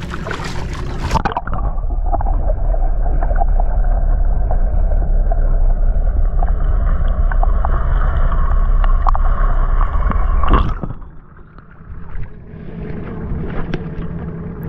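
Camera microphone dipped under the sea: about a second in it plunges in with a splash, then there is a dull, deep, steady rumble with no highs and faint steady tones. Shortly before the end it comes out with another splash, and water sloshes against the outrigger boat.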